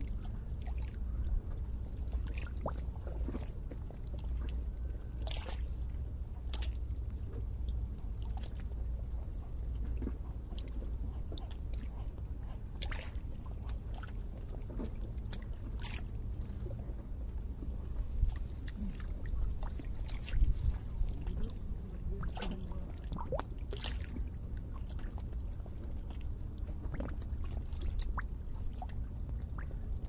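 Water bubbling and gurgling at the edge of a lake: irregular small pops and splashes over a low steady rumble, with a few louder ones about two-thirds of the way through.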